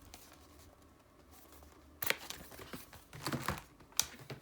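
Album packaging crackling and tearing as it is opened by hand: quiet at first, then sharp crackles about two seconds in, a cluster of crinkles a little later, and a sharp snap near the end.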